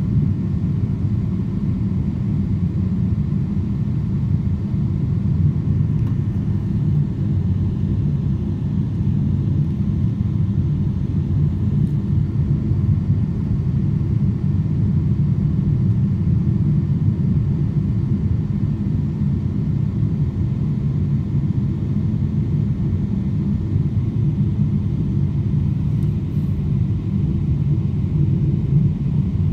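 Steady low rumble inside an airliner cabin of the jet engines at idle, with the plane standing or creeping on the taxiway before takeoff. It is even and unchanging throughout.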